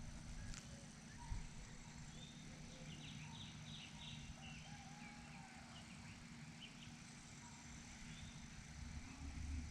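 Quiet outdoor ambience with a run of faint, short high chirps about three seconds in and a couple of small clicks.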